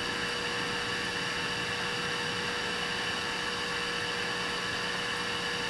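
Gas welding torch hissing steadily while heating thin steel during a weld, with a faint steady hum underneath.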